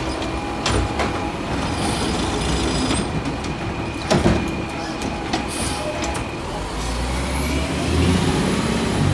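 Diesel garbage truck with an automated side-loader arm running at work. The arm lowers an emptied cart and sets it down with a sharp knock about four seconds in. Near the end the engine revs up as the truck pulls forward.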